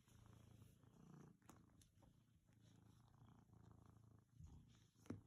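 Domestic cat purring softly, a low rumble that swells and eases with each breath in and out. A short sharp click comes near the end.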